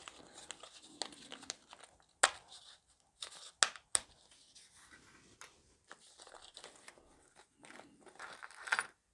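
Small clear plastic bag of model anchor parts crinkling and rustling as it is handled and opened, with a few sharp snaps and clicks about two to four seconds in and a longer stretch of crinkling near the end.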